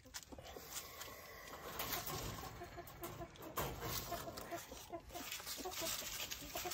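Hens clucking softly and repeatedly in the background, with faint crunching clicks of a rabbit chewing a homemade grain feed cake.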